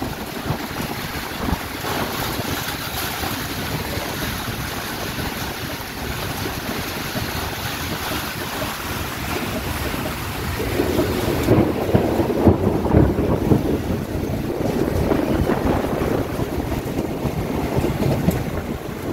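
Wind and rain of a storm, with the wind buffeting the microphone; it gets louder about halfway through as a stronger gust comes in.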